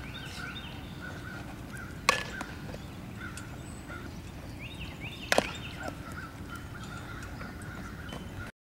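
A softball bat hitting a fastpitch softball twice, about three seconds apart, each a sharp crack. Birds chirp in the background.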